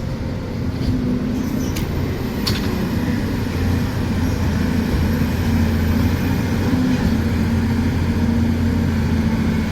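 Hydraulic excavator's diesel engine running steadily, with a couple of light metallic clicks about two seconds in.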